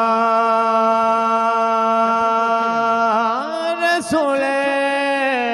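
Male voice singing a naat, holding one long note, sliding to a new pitch about three seconds in and holding again.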